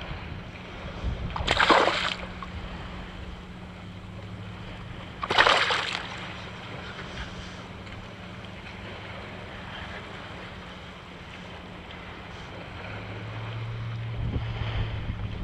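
Wind and small waves around a kayak, with two short loud splashes about one and a half and five seconds in, from a hooked fish thrashing at the surface.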